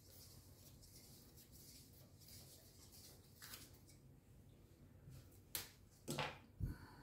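Faint rustling of hands handling small parts, then a sharp click about five and a half seconds in and two knocks a moment later as tools or fittings are picked up and set down on a wooden workbench.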